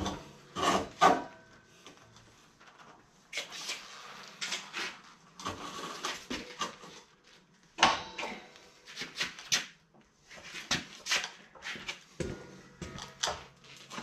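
Irregular clattering knocks of things being handled and set down, in scattered clusters of sharp strokes.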